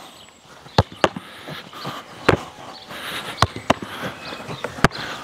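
Sharp thuds of a football being kicked and caught in goalkeeper gloves during a chest-high shot-stopping drill: about half a dozen single hits at uneven intervals.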